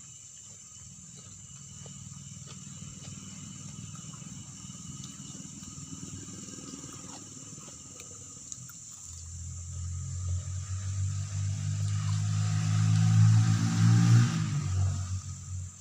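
A motor vehicle engine approaches over several seconds, is loudest just past the middle, then quickly fades, over the steady chirping of crickets.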